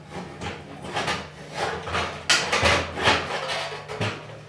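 A 12-inch sheet-metal stove pipe scraping and knocking against the inside of a steel drum as it is worked down into place: a run of irregular rasping scrapes and bumps, loudest a little past the middle.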